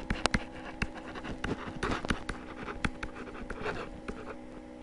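Tablet pen tapping and scratching on the screen as a few words are handwritten, making many short, irregular clicks over a steady hum.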